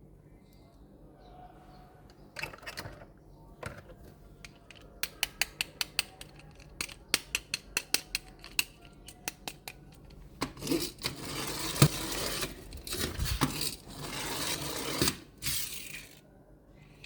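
Miniature diecast toy trucks being handled: a run of sharp plastic-and-metal clicks, about three a second, then several seconds of scraping and rustling.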